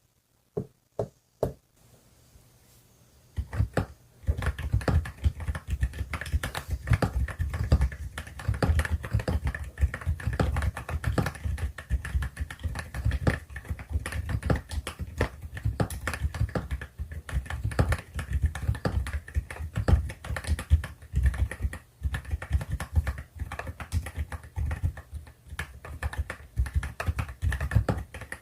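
Mechanical keyboard with HAIMU silent Pink Salt switches (EPOMAKER RT65) being typed on: a few separate keystrokes at first, then steady, fast typing from about three and a half seconds in.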